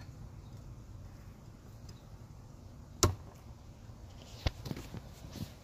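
An 8-inch fixed-blade knife, a Busse Combat Hellrazor, stuck point-first into a wooden stump with one sharp impact about three seconds in, followed a second and a half later by a smaller knock and a few light clicks.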